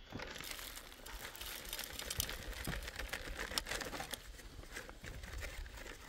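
Dry soil being shaken through a wire-mesh sieve: a steady hiss of falling grit with many small clicks as pebbles and grains strike the mesh and the metal pot below.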